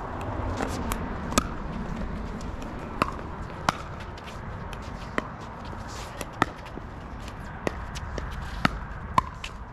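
Pickleball rally: the sharp pop of paddles hitting a plastic ball, about a dozen hits at irregular intervals, some louder and some fainter, over a low steady rumble.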